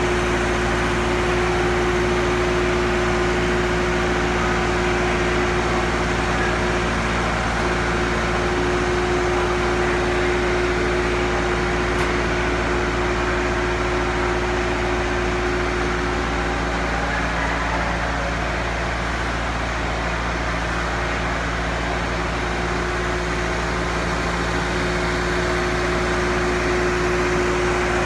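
Running machinery: a steady, unchanging drone with a constant hum.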